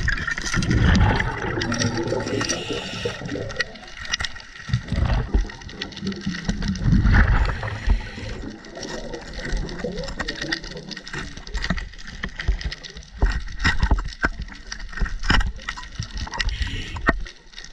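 Scuba regulator breathing heard underwater: gurgling surges of exhaled bubbles that come and go, with a hiss of inhaled air between them. Scattered short clicks and knocks run through the second half.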